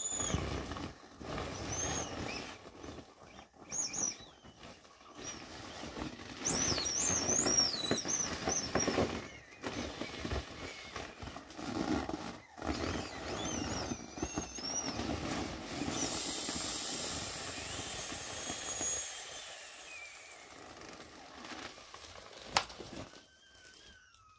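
Inflatable vinyl bunny toys squeaking and creaking as they are squeezed and rubbed against each other to deflate them, with irregular high wavering squeals. A sharp click comes near the end.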